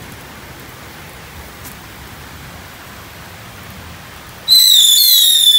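Steady hiss of rain, then about four and a half seconds in a mercon tikus (Indonesian 'rat' ground firecracker) lets out a loud, shrill whistle that falls slightly in pitch and lasts about a second.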